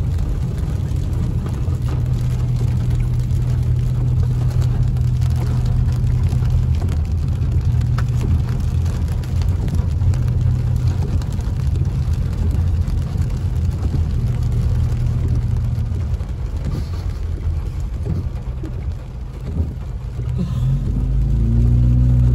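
Steady engine and road rumble heard from inside a car driving slowly on a wet road, swelling a little near the end.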